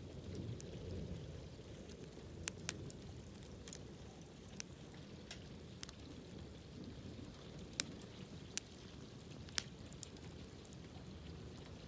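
Wood campfire burning with a low steady rush, and sharp crackles and pops at irregular moments, about nine of them.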